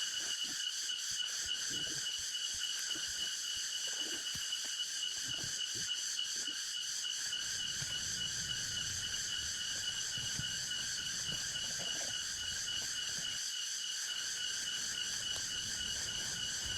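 Tropical forest insect chorus: a steady shrill drone at several pitches, pulsing rapidly and evenly. Soft low knocks and crackles come through in the first half, and a low rumble starts about halfway through.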